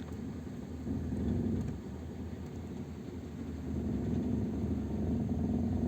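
Kia Ceed's engine and drivetrain running in fourth gear with the brake applied, its wheels off the ground: a steady low rumble and hum that swells twice, about a second in and again from about four seconds in. The owner noticed a hum and vibration in this gear while hunting a knock in the gearbox.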